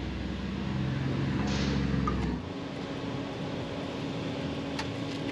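A low, steady engine hum stops about two and a half seconds in, leaving steady background noise, with a single sharp click near the end.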